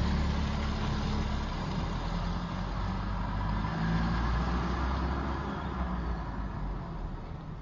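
Car engine running with road noise, a steady low hum that slowly fades out.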